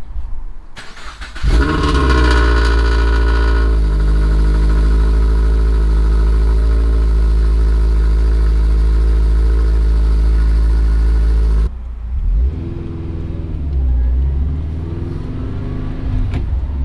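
A Toyota 86's FA20 flat-four engine, fitted with Tomei unequal-length headers, cranks briefly and starts about a second and a half in. Its revs flare and settle over a couple of seconds to a steady, fast idle with a rumble. Near the end the sound drops suddenly and goes on quieter.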